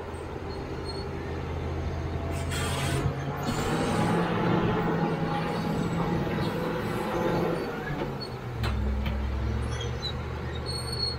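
CAT D7G bulldozer's six-cylinder diesel engine running as the dozer travels on its tracks. The engine note rises about three seconds in and drops back about eight and a half seconds in, with a brief hiss just before the rise.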